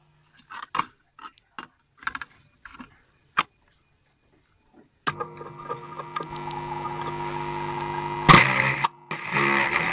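A few scattered short clicks and knocks, then from about halfway through, music begins playing and grows louder. A single loud sharp crack comes near the end.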